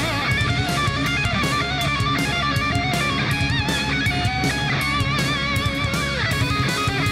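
Background rock music: electric guitars over a steady drum beat, with a lead guitar bending and wavering in pitch.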